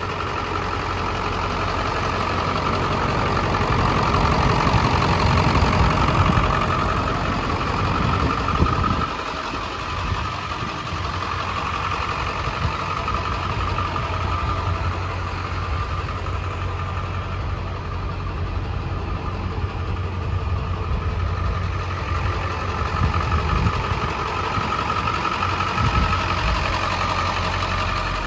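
Ford F550's 6.0-litre Power Stroke V8 diesel idling steadily. It gets louder over the first several seconds, then settles back about nine seconds in.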